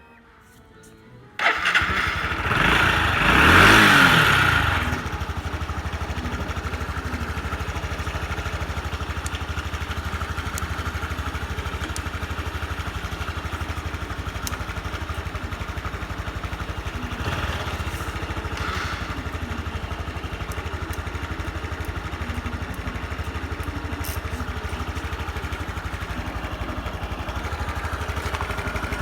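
A Honda Super Cub 110 PRO's 110 cc air-cooled single-cylinder four-stroke engine starts about a second and a half in, revs up briefly and settles into a steady idle. The seller describes the engine as in good condition with no abnormal noises.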